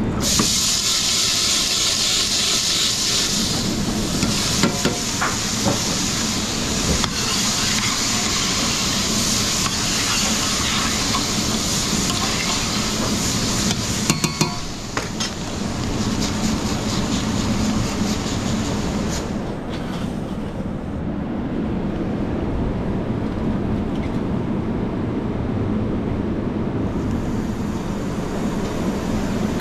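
Food sizzling in a hot pan, with a few sharp utensil clicks. The sizzle dies away about two-thirds of the way through, leaving a steady low hum.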